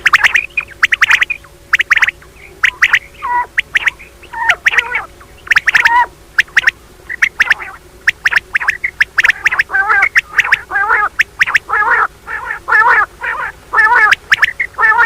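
Female common quail calling: short, raspy call notes repeated in quick clusters, the mating call used to lure male quail in quail hunting.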